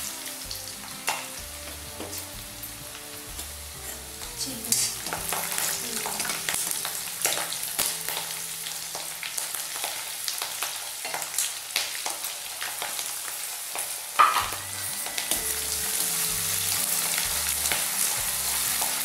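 Oil sizzling hard as whole spices, green chillies, ginger and garlic fry in a kadhai for the kadhi's tempering, with a metal slotted spatula scraping and knocking against the pan as it stirs. One sharp clack about fourteen seconds in, and the sizzle grows a little louder near the end.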